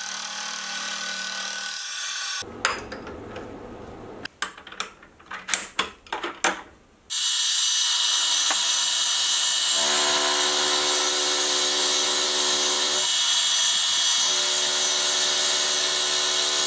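Sieg X2.7L mini milling machine cutting aluminium. A steady hum while the cutter spins, then about five seconds of irregular, ragged cutting strikes. From about seven seconds in, a steady loud hiss of an end mill slotting a V-groove, with a motor hum joining it a few seconds later.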